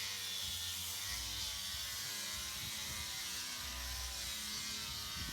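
Electric sander running steadily on wood, with a faint wavering motor whine.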